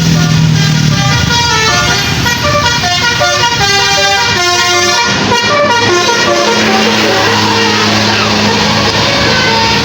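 Telolet basuri musical air horn on a tour bus playing a quick tune of short stepped notes, then a lower held tone, over the bus's running engine.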